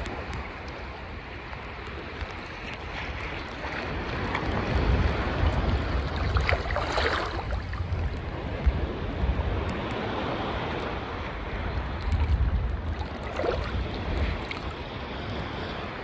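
Sea water sloshing and lapping close to the microphone, with wind buffeting the microphone as a low rumble; a louder rush of water comes about seven seconds in.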